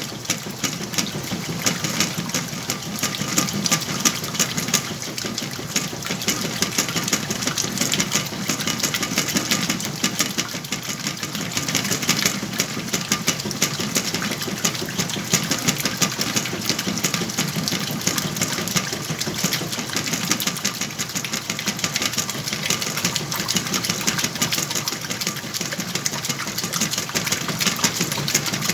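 Whirlpool washing machine running with a load of sheets and pillows: a steady motor hum under a dense, rapid rattle, with no break throughout.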